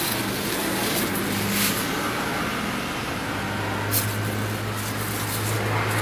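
Steady urban background noise with a continuous low hum, like distant traffic and machinery, broken by a few brief rustling clicks.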